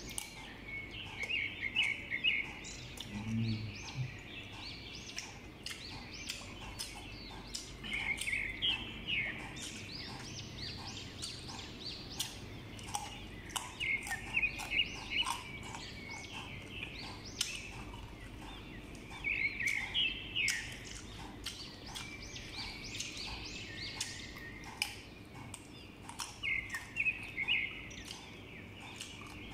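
A bird singing the same short chirping phrase about every six seconds, over the wet crunching and clicking of someone chewing slices of sour green mango.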